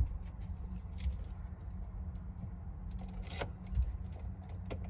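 A key ring jingling and a few sharp clicks as the ignition key of a 2005 Mercedes Sprinter is handled in the switch, over a steady low hum. The van has a no-crank, no-start fault.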